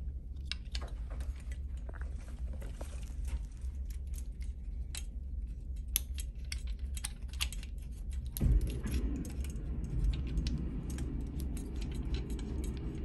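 Plastic fittings and tubing of a lumbar drain set being handled and pushed onto a pole-mounted clamp: scattered light clicks and rattles over a steady low hum, with a knock about eight and a half seconds in followed by a rubbing noise.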